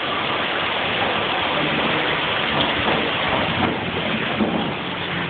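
Steady hiss of falling water, like heavy rain, beating on surfaces close to the microphone.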